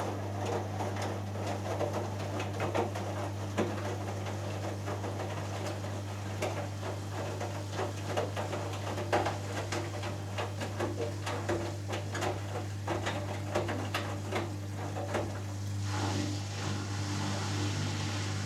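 Hoover Dynamic Next washing machine starting its second interim spin: the drum turns with wet laundry tumbling, making many small knocks and splashes over a steady motor hum. Near the end a steadier rushing noise takes over.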